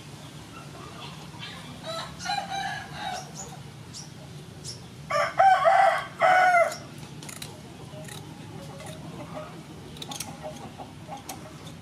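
A rooster crows loudly about five seconds in, after a shorter, fainter call around two seconds in. Light clicks of kitchen scissors snipping the fins off a sole follow.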